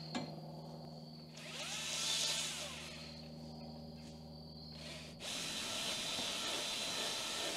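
An engine running steadily at idle, with a sharp click just after the start. About five seconds in the sound changes abruptly to a louder, steady rushing noise.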